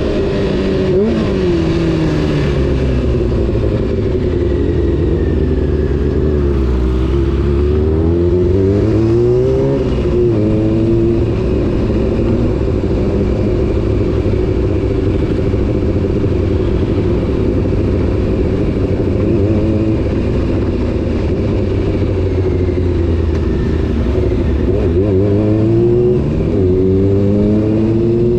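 Honda CBR600 F4 inline-four motorcycle engine and exhaust on the move: the revs fall off early, climb again, hold fairly steady through the middle, then drop and rise once more near the end.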